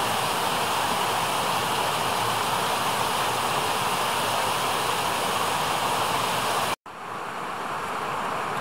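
Steady rush of running stream water. It cuts out for an instant about two-thirds of the way through and comes back softer and duller.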